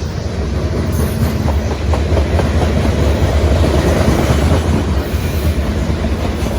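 CSX freight train's cars rolling past with a steady, loud low rumble of steel wheels on rail.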